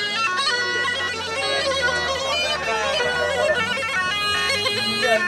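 Tulum, the Black Sea bagpipe, playing a horon line-dance tune, a quick run of notes stepping up and down over a steady low tone.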